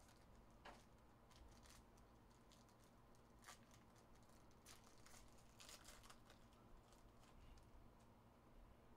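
Very faint crinkling and soft ticks of a plastic trading-card pack wrapper being peeled open by hand, in scattered bits rather than a steady sound.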